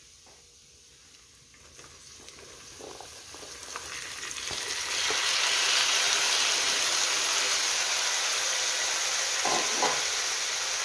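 Sliced jiló (scarlet eggplant) tipped from a bowl into a pan of hot pork lard with browned ground meat: the frying sizzle swells over a few seconds as the pieces land, then holds loud and steady. A couple of light knocks near the end.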